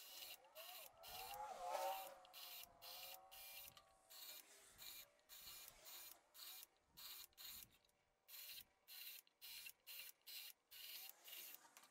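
Cordless drill with a 1/4-inch bit boring holes through the side of a small cedar box, heard faintly. A motor whine rises and wavers in pitch in the first few seconds. Then come many short, stuttering bursts of cutting noise with brief gaps between them.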